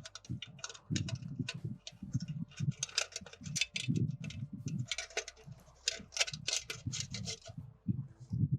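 Irregular small metal clicks, taps and light knocks of hardware being handled and fitted: the hold-downs going onto a clamp-on flowmeter sensor mounting frame.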